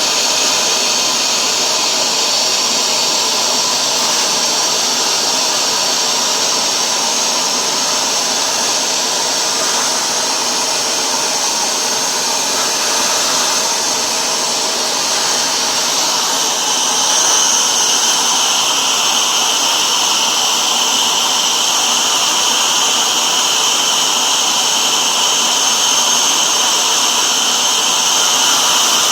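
Hoover Dual Power Max carpet washer running in tool mode, its suction motor going steadily as the hand tool sprays and extracts water from a floor mat. About halfway through, the pitch of the motor noise shifts and it gets slightly louder.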